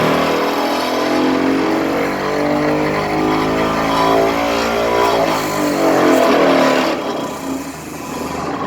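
Excavator-mounted vibratory pile driver running with the excavator's diesel engine, a loud continuous hum whose pitch shifts up and down, dipping somewhat near the end.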